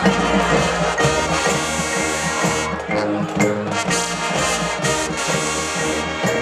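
High school marching band playing: brass with a repeating low bass line under sustained chords, and drum hits.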